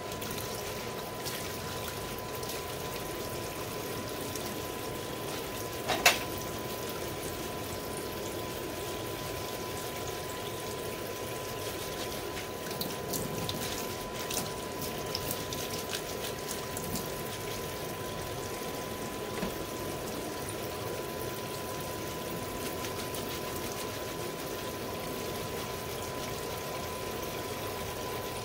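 Water running and splashing, with a sharp knock about six seconds in and a few light clatters a little later, over a thin steady tone.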